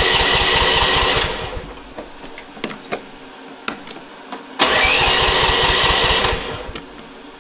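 AGT QK16R mini excavator's engine cranked by its electric starter with the choke pulled: a burst of cranking that stops about a second in without the engine catching, a few clicks, then a second crank of under two seconds about four and a half seconds in, each opening with a rising starter whine, still not catching.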